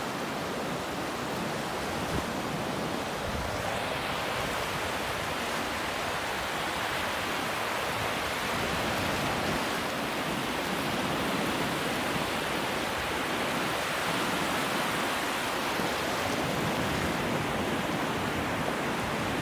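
Ocean surf breaking and washing up a shallow beach: a steady rushing noise that swells a little at times.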